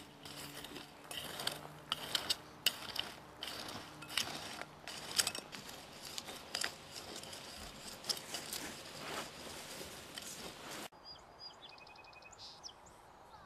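Steel blade of a hand angle weeder scraping and chopping through clumpy soil in quick, irregular scratches. The scraping stops suddenly about eleven seconds in, leaving faint outdoor ambience with a few high chirps.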